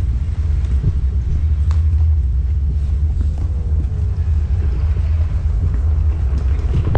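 Steady low rumble on the microphone of a camera mounted on a moving power wheelchair, with a few faint knocks.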